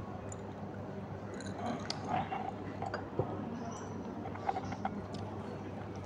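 Close-miked eating sounds: wet chewing and squishing of rice and curry eaten by hand, with scattered small clicks over a steady low hum.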